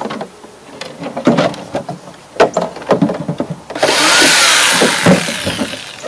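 Knocks and clicks from a plastic cooler lid being handled, then a Skil jigsaw runs in a single loud burst of about a second and a half, nearly four seconds in, and stops.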